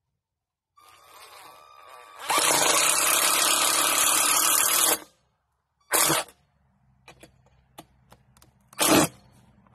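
Cordless drill driving a screw: one loud steady run of about three seconds, then two short bursts about three seconds apart.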